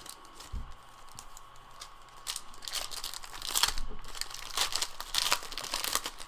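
Foil trading-card pack wrapper being crinkled and torn open in a series of rustling bursts, loudest in the second half, with a soft thump near the start.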